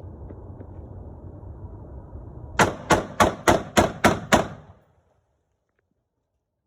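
AR-style pistol fired seven times in quick succession, about three to four sharp shots a second, over a steady low rumble.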